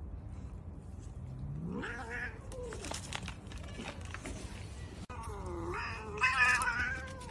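Cat yowling during rough play with a dog: a short call about two seconds in, then a longer, louder, wavering one near the end. A steady low hum runs underneath.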